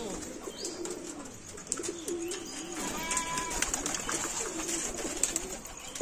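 Domestic pigeons cooing: low, warbling coos repeated one after another.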